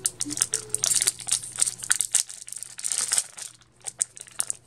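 Yu-Gi-Oh! booster pack's foil wrapper crinkling and tearing open by hand, a rapid run of sharp crackles with a short lull near the end.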